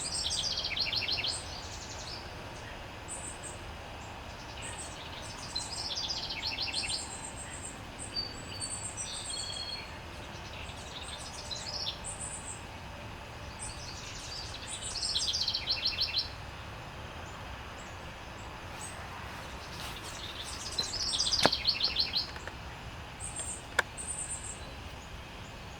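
A mix of wild songbirds of several species singing and calling. One bird repeats a fast trilled phrase four times, with short high thin notes from others in between.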